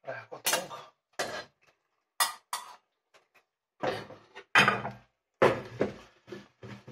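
A metal slotted spoon scraping and clinking against a stainless steel saucepan as cooked penne is scooped out and dropped into a frying pan, in about five short clatters with pauses between.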